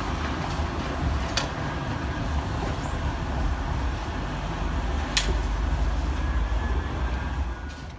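Manchester Metrolink tram moving along street tracks amid city street noise: a steady low rumble with a hiss over it. Two sharp clicks come about a second and a half in and again about five seconds in.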